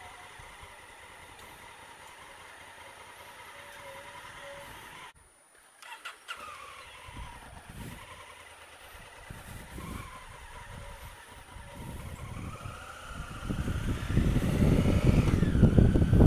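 Honda Africa Twin CRF1000L parallel-twin engine running at low speed, heard from the rider's seat, with a brief gap of near silence about five seconds in. In the last few seconds the rider accelerates: the engine pitch rises then eases off, and wind buffeting on the helmet microphone grows loud.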